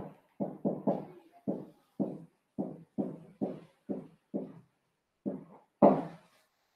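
Marker pen writing on a whiteboard: a quick run of short tapping strokes against the board, two to three a second, the loudest about six seconds in.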